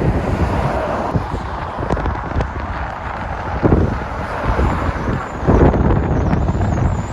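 Motorway traffic going by, a steady rumble of engines and tyres with two louder vehicles passing, about three and a half seconds in and again near five and a half seconds, with wind on the microphone.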